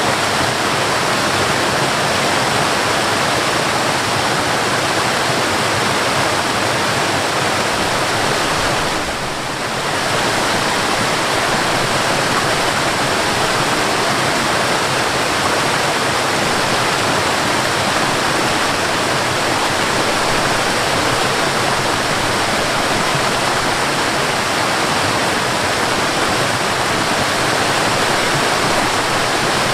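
Mountain waterfall rushing in a steady, dense roar of falling water, which dips briefly in loudness about nine seconds in.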